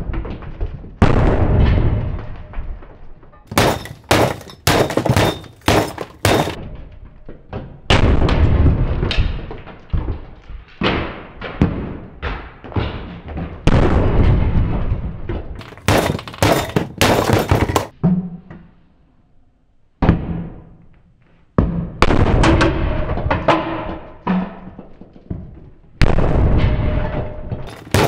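Wooden sledgehammer blows on a bench, smashing a plastic KerPlunk toy: repeated heavy thuds about every two seconds, each with a ringing decay. Two flurries of sharp cracks come from plastic breaking and bits scattering.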